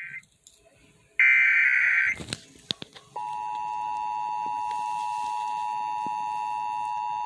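Emergency Alert System Required Monthly Test tones. About a second in comes one harsh electronic data burst of the digital SAME header, then a few clicks. From about three seconds in, the steady two-tone EAS attention signal sounds.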